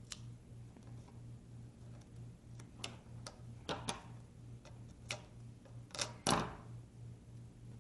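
Scattered light clicks and taps from handling adhesive tape and small parts on a tablet's frame during a screen repair, with the loudest pair about six seconds in, over a steady low hum.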